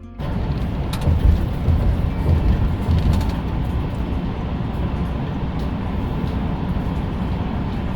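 Steady low rumble and road and wind noise of a vehicle being driven, which starts abruptly as background music cuts off at the very beginning.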